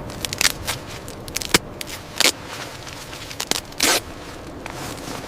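Steady blizzard wind, with about half a dozen irregular, short, sharp scraping and crackling noises.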